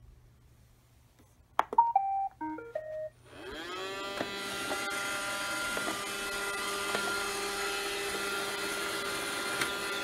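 A robot vacuum cleaner (iRobot Roomba) gives a click and a short tune of stepped beeps, then its vacuum motor spins up with a rising whine and settles into a steady running hum.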